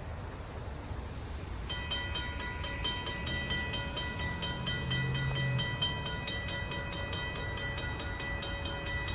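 Griswold/RACO mechanical level-crossing bell starting to ring about two seconds in, with rapid, even strokes (roughly six a second) and a steady ringing tone: the crossing warning activating for an approaching train. A brief low drone sits under it around the middle.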